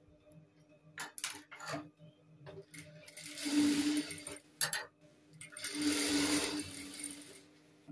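Industrial single-needle sewing machine stitching a dart in blouse fabric, in two runs, the first a little over a second and the second about two seconds, with a steady motor hum under the stitching. A few light clicks of the fabric being handled come before the first run.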